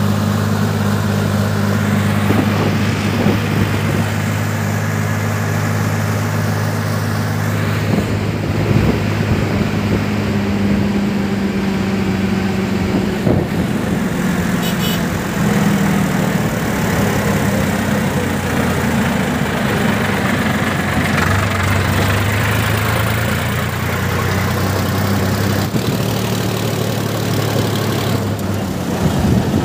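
Sonalika tractor's diesel engine running steadily as the tractor drives along, its low drone shifting pitch slightly now and then.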